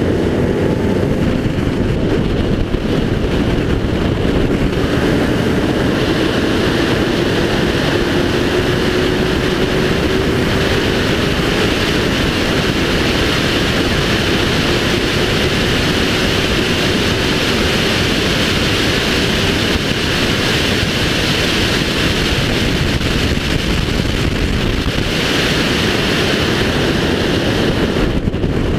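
Race car engine running at speed on track, under heavy steady wind and road noise, its faint engine note sliding slowly down and up with the throttle.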